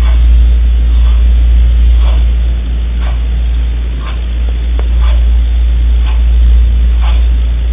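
Steady low hum with hiss over it, the background noise of a surveillance recording in a small interview room, with a wall clock ticking faintly about once a second.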